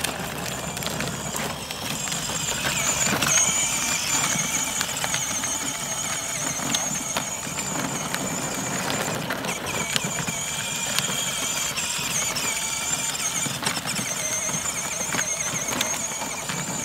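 Kids' electric ride-on motorcycle, a 6-volt BMW R1200GS replica running on a 12-volt battery, driving along: a steady, high whine from its small electric drive motor and gearbox, wavering slightly, over the rumble of its wheels rolling on pavement and grass.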